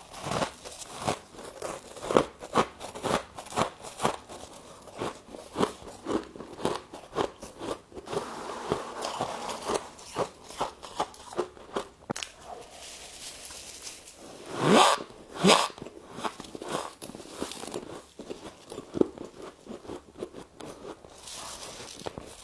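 Freezer frost ice being bitten and chewed close to the microphone: a quick run of sharp crunches, several a second, with two louder bites about fifteen seconds in.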